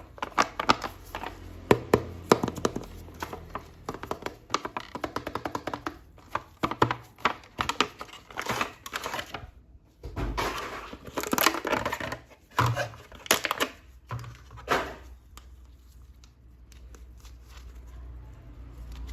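Hands handling a toy figure and its plastic packaging: a run of clicks and taps with bursts of plastic crinkling, quieter near the end.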